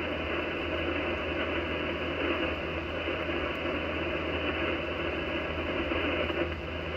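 Steady hiss of 40-metre band static from an Icom IC-756PRO receiver tuned to lower sideband, cut off above about 3 kHz, over a steady low hum.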